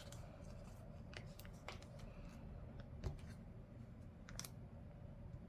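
Scattered light clicks and taps of paper handling at a desk as planner pages and stickers are worked, the sharpest tick about three seconds in, over a faint steady room hum.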